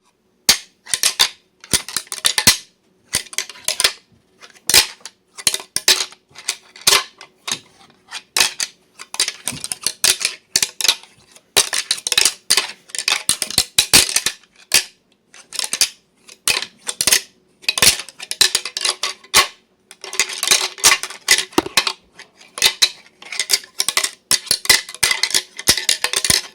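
A pair of deer antlers clashed and ground together, the rattling that imitates two bucks sparring. It comes in irregular bursts of sharp clacks: some single knocks, others rapid rattles lasting two or three seconds, with short pauses between.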